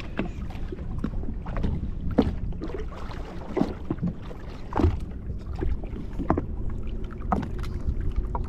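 Sea water lapping and slapping against the hull of a drifting jet ski, in irregular short slaps over a steady low rumble.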